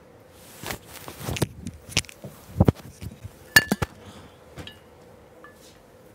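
Rustling and a quick run of sharp knocks and clinks, a couple ringing briefly, as a person gets up from a bed and handles small objects; it settles after about four seconds.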